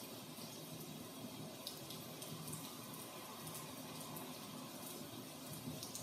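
Steady rain with scattered drip ticks, layered over a low, even rumble.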